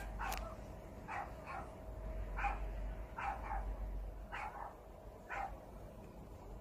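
A dog barking repeatedly, about one to two barks a second, some in quick pairs.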